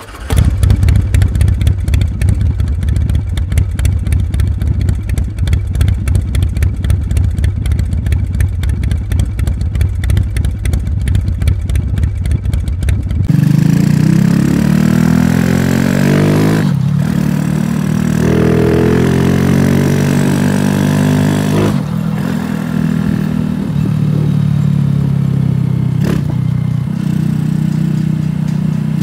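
Custom motorcycle engine. For about the first 13 seconds it runs with a loud, fast, even pulsing. It then carries the bike along, its pitch rising and falling, with short breaks about three times as the rider shifts gears.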